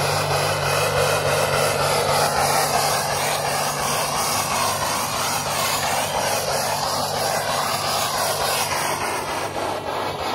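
Jeep Grand Cherokee engine held at high, steady revs through a loud exhaust, as its wheels spin in snow. The drone eases off slightly near the end.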